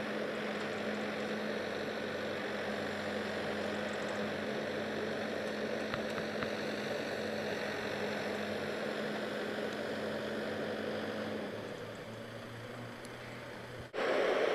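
Backhoe loader's diesel engine running steadily as it works. About eleven seconds in, its note drops lower and it goes quieter. Near the end the sound breaks off abruptly.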